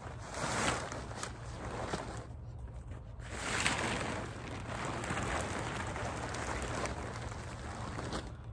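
Tent fabric rustling in repeated swells as a collapsed tent is gathered up and folded on the ground, with a short lull about two and a half seconds in.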